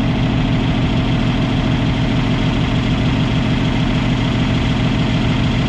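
Engine of farm machinery idling steadily, an even, unchanging hum.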